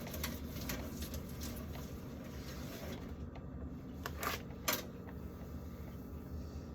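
Faint knocks and rustles of food packages being handled and set into a plastic fridge drawer, with two sharper clicks close together a little over four seconds in.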